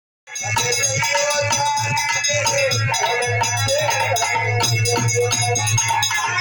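Instrumental music with a fast, even percussion beat over a steady low note and held melody notes, starting just after the beginning.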